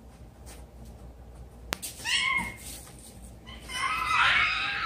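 Children imitating animal noises: a sharp click, then a short yelping cry about two seconds in, then a longer, rough, wavering cry near the end.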